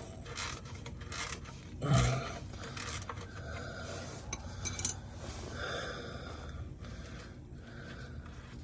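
Rubbing and scraping handling noises with scattered clicks, a louder knock about two seconds in and a sharp click near the five-second mark.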